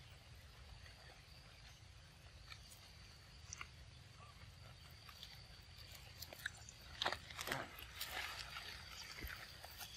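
A young monkey biting into and chewing a ripe mango: faint wet smacking and crunching, with a cluster of louder bites about seven seconds in.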